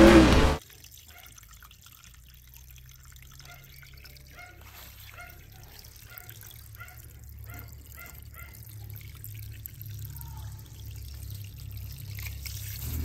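A racing car and music cut off abruptly about half a second in. Water then trickles and drips, with a run of small plinking drops through the middle, growing louder near the end.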